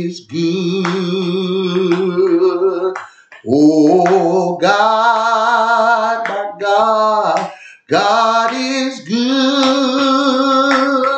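A gospel song sung slowly, the voice holding long notes with vibrato in phrases of a few seconds, with short breaks between them.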